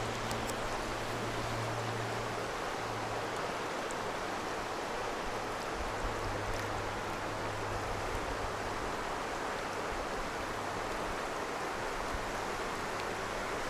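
Rushing river water, a steady even rush, with a steady low hum underneath that is strongest for the first couple of seconds.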